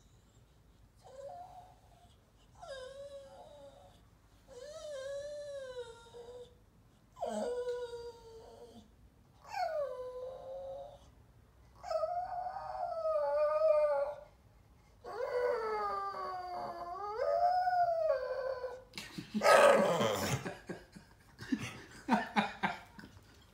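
Staffordshire Bull Terrier x Rhodesian Ridgeback dog 'singing': about seven drawn-out howling whines, each one to three seconds long, wavering up and down in pitch and getting louder as they go on. The owner takes the singing for a bid for attention. Near the end come a few louder, rough, noisy bursts.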